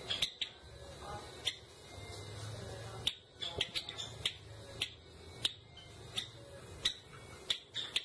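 Caged Java sparrow giving short, sharp chip notes: a few in the first second and a half, then a quicker irregular run of about a dozen from about three seconds in.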